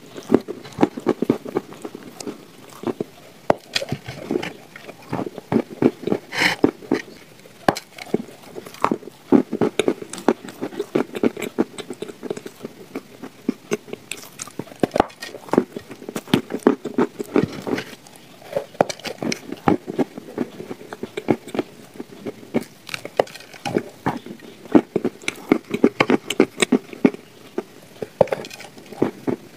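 Eating sounds: bites into crumbly shortbread with chocolate paste and chewing. A dense run of crisp crunches, broken by short pauses between bites.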